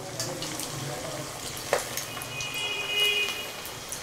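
A mutton meatball deep frying in hot oil, sizzling and crackling, with a light click a little before halfway and a brief high tone about three seconds in. The vigorous bubbling is the sign that the oil is properly hot, so the ball will hold together and not break apart.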